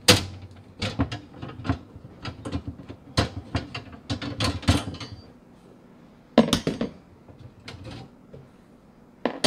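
Metal clanks and rattles from a black steel wire trash-can frame being worked off its pull-out slide tray: a run of sharp knocks and clinks for about five seconds, a short burst again after six seconds, and one more knock near the end.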